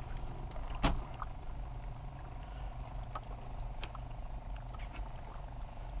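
Steady low mechanical hum with a faint whine over it, and light clicks of fish and tackle being handled. One sharp knock comes about a second in.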